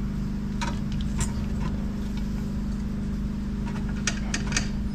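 A few light clicks and taps as hands work on the transmission and bell housing, several in quick succession near the end, over a steady low hum.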